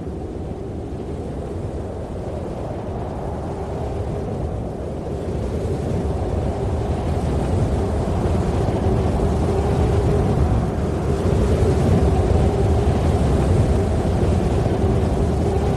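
Low, rumbling drone played as the dance soundtrack, growing gradually louder, with a steady humming tone coming through about seven seconds in.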